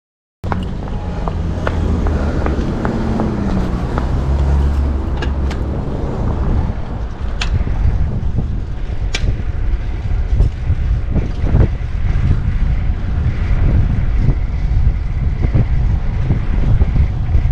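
Wind buffeting an action camera's microphone on a fixed-gear bicycle riding through city traffic, a loud steady rumble with a passing vehicle's engine early on and a few sharp ticks.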